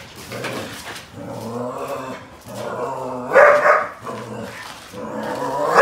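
German Shepherd barking and growling in a run of drawn-out bouts, the loudest about three and a half seconds in: a reactive dog that has spotted another dog.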